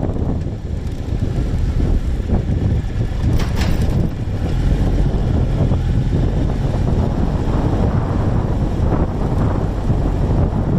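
Heavy wind buffeting on the microphone of a camera riding on a Triumph Tiger Explorer 1200 motorcycle under way, with the bike's running buried beneath it. A brief knock about three and a half seconds in.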